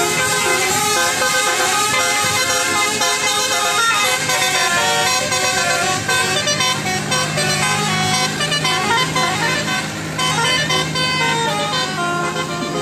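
Bus telolet horn, a multi-tone musical horn, playing a tune of changing notes, over a steady low hum.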